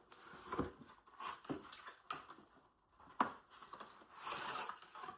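Cardboard advent calendar door being pulled open and the packaging inside handled: irregular taps and scrapes, with a longer tearing rustle about four seconds in.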